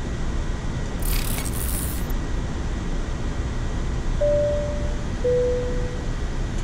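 Steady flight-deck noise of a Boeing 787-9 in flight: a low rush of air and systems. About a second in there is a brief hiss, and near the end a two-note chime falls from a higher to a lower note.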